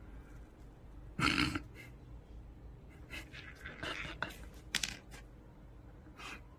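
A cat pouncing and batting a small metal screw around on a wooden floor. There is a short rustle about a second in, then light clicks and scrapes as the screw skitters across the boards, with two sharper clicks near the middle.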